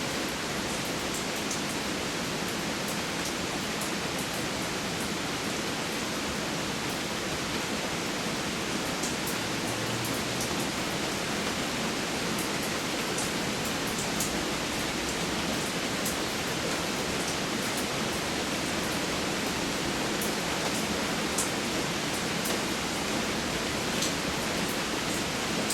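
Steady rain, an even hiss with scattered faint high-pitched drip ticks.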